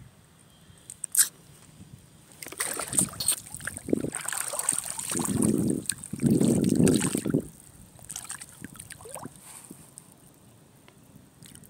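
Water sloshing and splashing close to the microphone in a rush of a few seconds with crackling, loudest near the middle and dying away, after one sharp click about a second in.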